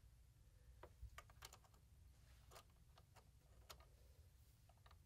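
Near silence with faint, irregular small clicks as a metal bobbin case holding its bobbin is handled and pushed into place in a sewing machine's bobbin area.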